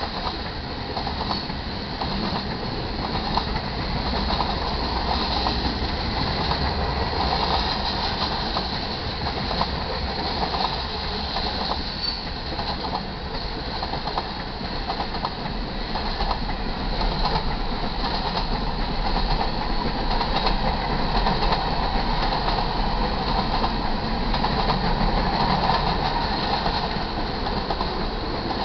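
Freight cars of a manifest train rolling past close by: covered hoppers and then tank cars. It is a steady rumble of steel wheels on rail with many short clacks as the wheels cross the rail joints, growing a little louder in the second half.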